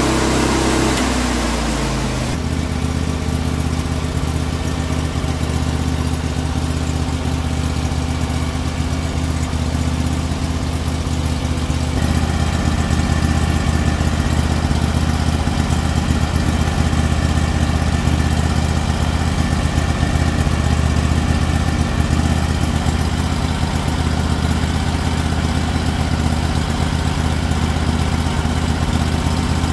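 Norwood HD36 portable sawmill's engine running: its pitch drops in the first couple of seconds, then it runs steadily, shifting to a slightly louder, steady note about twelve seconds in.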